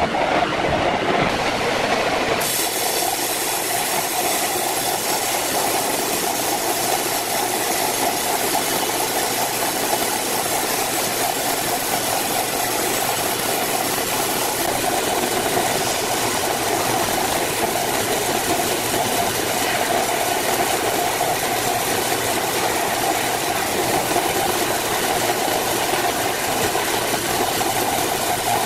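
Horizontal band sawmill running and cutting lengthwise through a thick squared timber, with the band blade and its electric drive giving a steady, unbroken whir. The sound shifts about two seconds in, then holds steady.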